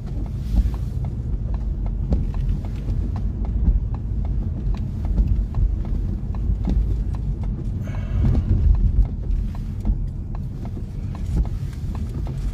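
Low rumble inside a vehicle on the road, with a steady sharp ticking about twice a second.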